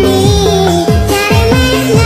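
Electronic dance music: a bass note slides down about twice a second under a higher melody line.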